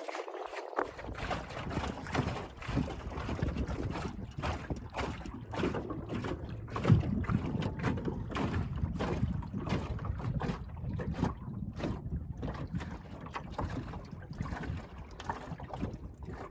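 Small fishing boat under way on a lake, with wind buffeting the microphone and rushing water.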